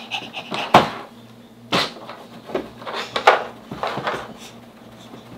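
About five scattered taps and knocks on a tabletop, the sharpest about a second in, from hands patting play dough and handling plastic dough tools.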